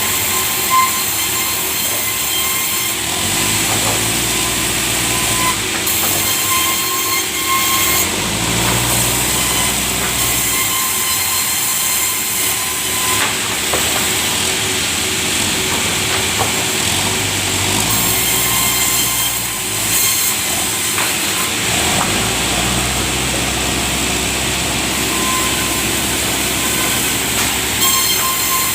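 Sawmill saw running: a steady high whine over continuous mechanical noise, with a low rumble that swells and eases several times.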